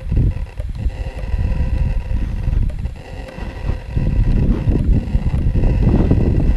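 Gusting wind buffeting the microphone in uneven low rumbles, easing about halfway through and building again, over a faint steady high-pitched hum.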